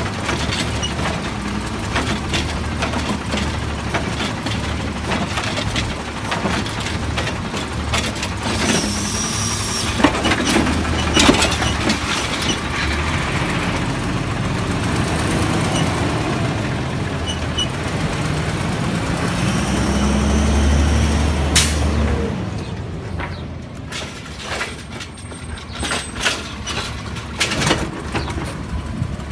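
Heil automated side-loader refuse truck working: its diesel engine and hydraulic arm run steadily while a recycling cart is emptied into the hopper, with clattering knocks about 9 to 11 seconds in. The engine swells about 20 seconds in and is cut by a short sharp hiss of the air brakes, after which the truck is quieter.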